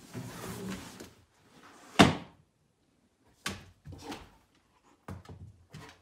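Knocks and thumps: one loud, sharp knock about two seconds in, then several lighter knocks and scuffs over the last few seconds, with quiet gaps between.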